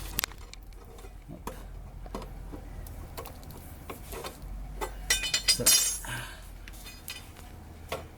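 Metal clinks and rattles from a car's factory jack and its crank tool as the jack is wound up to lift the vehicle, with a quick run of ringing clinks about five seconds in.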